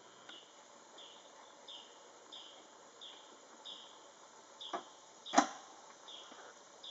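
A short high chirp repeating steadily, about three every two seconds. Two sharp knocks come a little past the middle, the second one louder.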